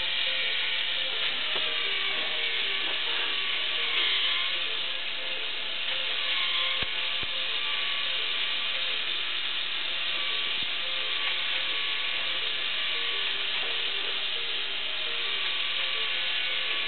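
Electric motor of a K'Nex model thrill ride running steadily, driving the ride's plastic gears.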